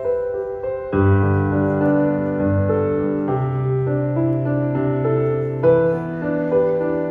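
Piano music accompanying a ballet dance, with sustained notes; a fuller accompaniment with deep bass notes comes in about a second in.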